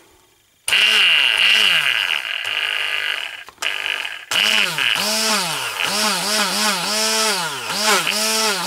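Braun hand blender motor running in air, driving the blade shaft through a 3D-printed adapter. Its whine rises and falls in a string of short bursts as the switch is pressed and let go, with a short pause about three and a half seconds in. The blender runs without trouble on the printed adapter.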